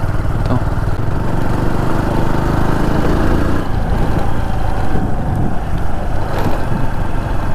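Motorcycle engine running steadily while riding along a rough forest track.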